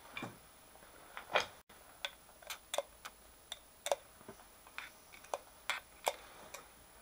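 Sharp, irregularly spaced clicks and snaps, about a dozen, the loudest about a second and a half in, as a milling vise's spindle is turned with a torque wrench. The unoiled vise snapping under low torque.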